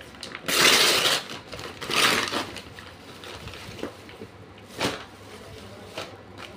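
Brown paper courier mailer being torn open and rustled by hand, with two loud tearing rustles in the first two and a half seconds and one short sharp crackle about five seconds in as the plastic-wrapped shirts inside are handled.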